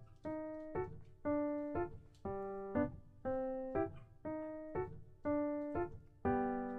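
Background piano music: a light, bouncy run of single notes, a longer note about once a second with a short pick-up note before each.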